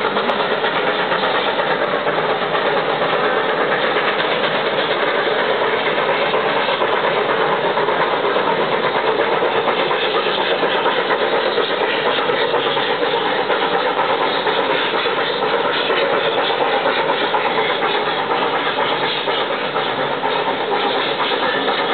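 3 ft 6 in narrow-gauge 4-6-2 Pacific steam locomotive working hard upgrade, its exhaust chuffing steadily.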